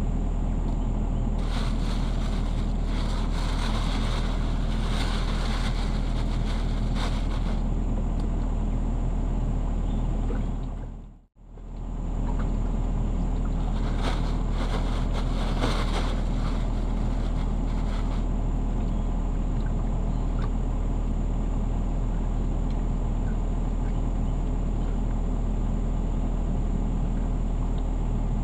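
Mini excavator's engine running steadily at a constant speed, with a low hum and some higher hiss at times. The sound drops out briefly about eleven seconds in.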